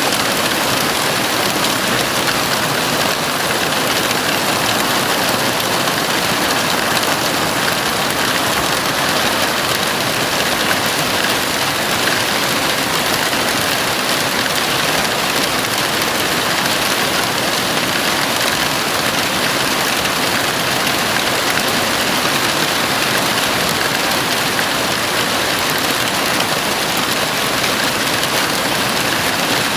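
Heavy rain falling steadily on a house roof: a dense, even hiss with no let-up or change.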